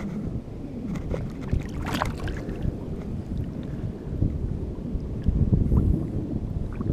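Wind buffeting the microphone at the shoreline, a steady low rumble with a few faint clicks.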